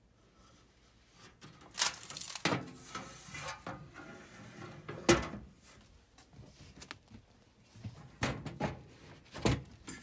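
Clunks and knocks from a Furrion gas range's oven door being opened and handled, with a few smaller rattles between them; the loudest knock comes about halfway through.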